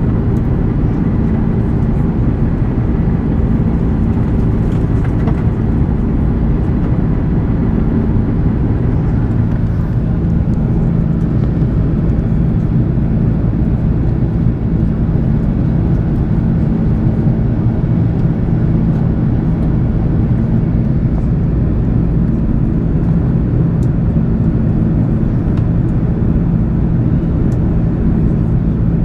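Steady drone of an Airbus A330 airliner heard inside its cabin in flight: engine and airflow noise with a low, even hum, unchanging throughout.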